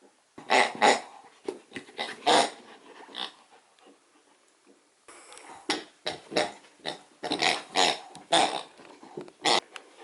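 Akita puppy chewing a plush pig toy, its squeaker giving a rapid, uneven series of short squeaks, with a pause of about a second and a half near the middle.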